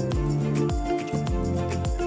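Background music with a steady beat: bass drum strokes about twice a second under sustained instrumental notes.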